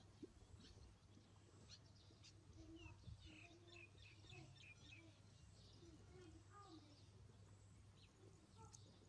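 Faint run of short, high chirping animal calls, many in quick succession from a few seconds in until about two-thirds of the way through, over a low background hum.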